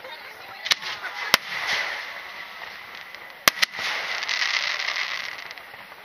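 Aerial firework shells of a starmine sequence bursting in the sky: four sharp bangs, two a little over half a second apart, then a quick pair about two seconds later, each followed by the crackling hiss of burning stars.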